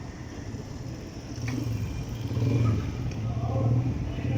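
A motorcycle engine running, its revs swelling up a couple of times.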